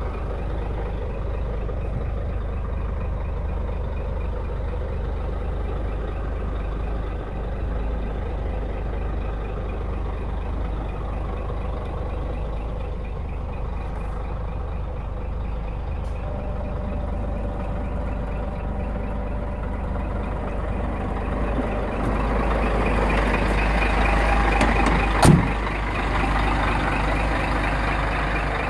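Scania tractor unit's diesel engine idling steadily, muffled inside the cab at first and louder and brighter from about three-quarters of the way in once outside beside the truck. One sharp bang sounds near the end.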